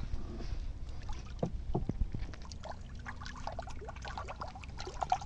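Shallow water splashing and sloshing in irregular sharp strokes as a fish thrashes inside a bamboo polo basket trap held down in the water.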